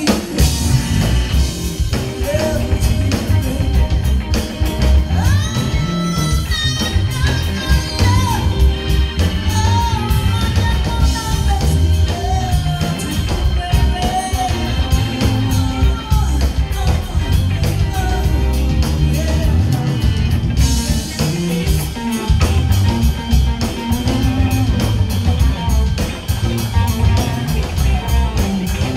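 A live electric blues band playing in the Chicago style: a woman singing over electric guitar, bass guitar and a drum kit.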